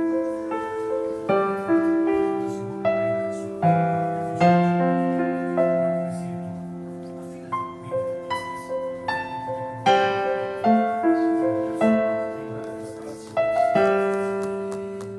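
Background piano music: a slow melody of single struck notes and chords, each ringing and fading.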